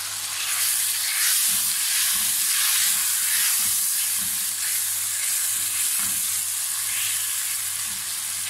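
Meat and spices frying in oil in a nonstick wok, with a steady sizzling hiss, while a spatula stirs and turns the pieces in repeated soft scraping strokes.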